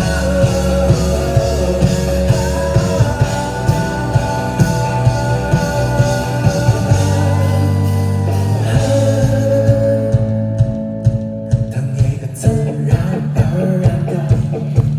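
Rock music with a singing voice, guitar and a steady beat; the high end drops away briefly about ten seconds in before the beat returns.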